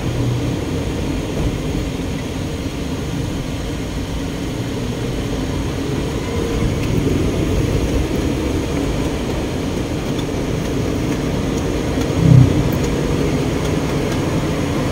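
Vehicle running along the road, heard from inside: a steady rumble of engine and tyres, with one short, louder low sound about twelve seconds in.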